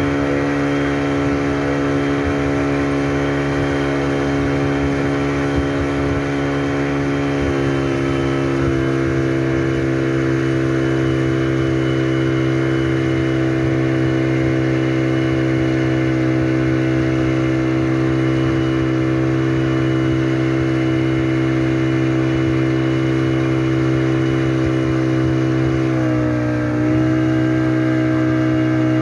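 Motorboat engine running steadily at speed while towing a banana boat. Its pitch steps up about a quarter of the way in and briefly dips and rises again near the end.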